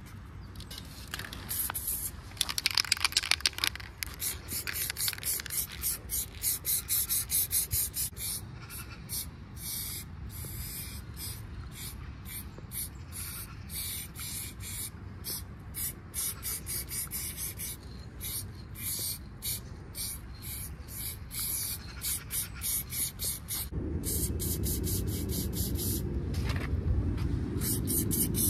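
Aerosol spray-paint can hissing onto a wall in many short bursts with brief gaps, and a few longer passes. A low rumble joins in over the last few seconds.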